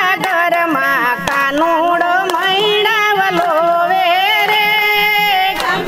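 Women singing a Gujarati devotional kirtan, one ornamented melody line over a steady low drone, with a regular beat of hand claps and percussion.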